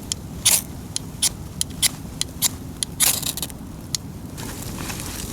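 Wood campfire crackling, with irregular sharp pops, a few each second, over a steady hiss.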